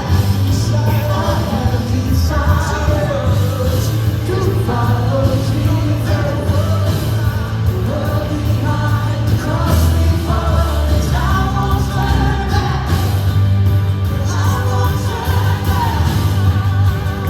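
Live worship band playing a rock-pop song, with singing over steady bass and drums.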